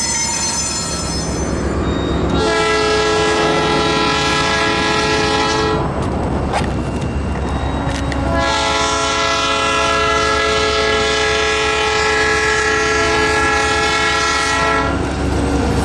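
Old-cast Nathan P3 locomotive horn sounding its mellow three-note chord (C#, E, A) in two long blasts, the second about twice as long as the first, over the rumble of the moving train. A fading earlier horn sounding ends in the first second.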